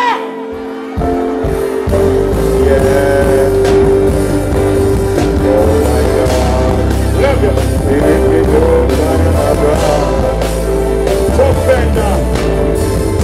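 Live band playing: after a short lull, bass and drums come in about a second in and the band, with keyboards and electric guitar, plays on steadily under a held keyboard note.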